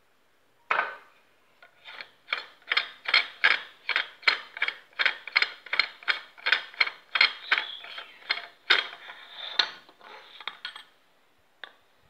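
Rapid ratcheting clicks, about three a second, as the carbon-fibre barrel shroud of a PCP air rifle is twisted off by hand.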